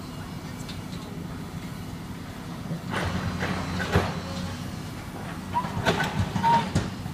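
Steady low engine hum. About three seconds in comes a noisier stretch ending in a sharp knock, and near the end there is another uneven stretch of clattering noise.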